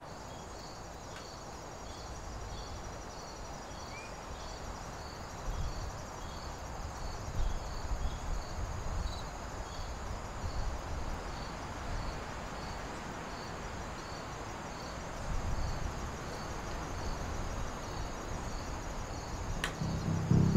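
Crickets chirping in an even rhythm, about two chirps a second, with a steady high insect whine, over a low uneven rumble of outdoor noise. A single sharp click near the end.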